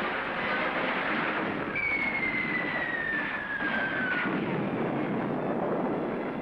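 Battle sound effects of shellfire: a continuous din of gunfire and shell bursts. About two seconds in, the falling whistle of an incoming shell drops steadily in pitch over about two seconds.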